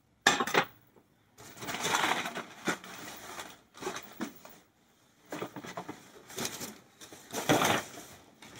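Ceramic bowls and clay crockery being set down and moved about, clinking several times with longer stretches of handling noise between the knocks.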